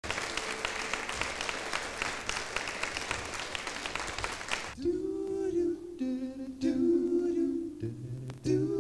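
Audience applause for about the first five seconds, then a male a cappella vocal group humming held chords in close harmony with no words. A low bass voice joins near the end.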